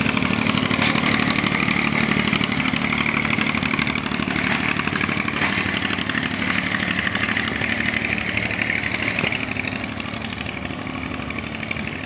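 Passenger train coaches rolling past on the rails, the wheels giving a fast, continuous clatter over a steady low hum. It eases off a little near the end as the last coach draws away.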